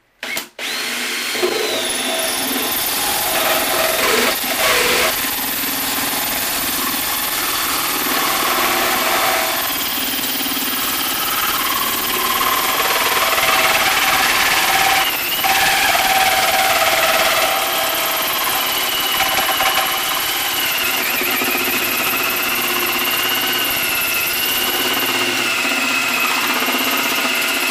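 Cordless drill driving a 1¼-inch hole saw into the two-layer sheet-steel lid of an ammo can, cutting through the top layer: a steady motor whine over the grinding of the saw teeth in metal. The whine drops in pitch about two-thirds of the way through.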